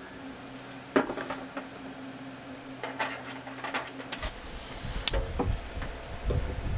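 Scattered knocks and clinks of hard objects being handled, over a steady low hum; about four seconds in the hum stops and a low rumble takes over.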